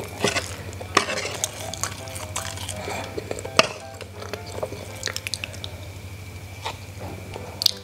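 Wooden spoon scraping and knocking against a tray while scooping up pieces of sticky-rice dumpling, a string of scattered clicks and taps with one sharper knock about three and a half seconds in.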